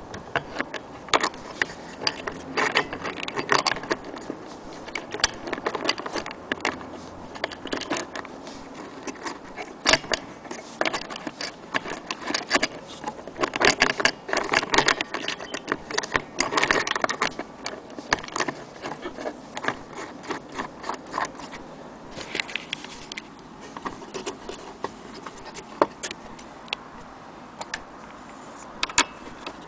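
Irregular metallic clicks, rattles and scrapes from a vintage Junghans strike wall clock and its parts being handled, thickest in bunches around the middle.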